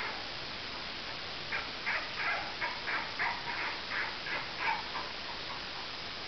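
Young puppies barking in a run of about ten short, high yips, roughly three a second, fading out near the end, over a steady hiss.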